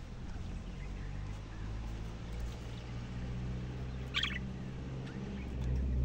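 Budgerigar chirping, with one short clear chirp about four seconds in and fainter chirps around it, over a steady low engine hum that grows louder near the end.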